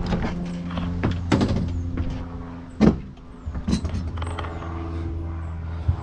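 Steady mechanical motor hum, with several clunks and knocks from things being handled in the truck bed and toolbox, the loudest a sharp knock about three seconds in.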